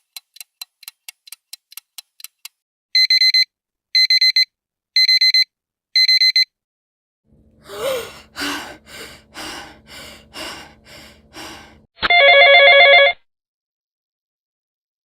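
A clock ticking quickly, then a digital alarm clock beeping in four rapid bursts about a second apart. A woman then pants hard and fast, out of breath as on waking from a nightmare, and a telephone rings once near the end.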